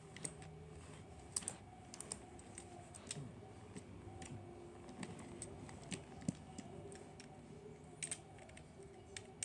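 Scattered light plastic clicks and taps as the body shell of a TrackMaster Boco toy engine is unclipped and handled, with a faint steady hum underneath.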